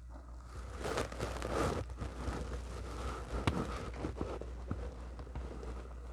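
Close-miked eating noises: soft wet rustling and crinkling with a few sharp clicks, loudest about one to two seconds in, as a messy chili cheese kielbasa is handled and chewed.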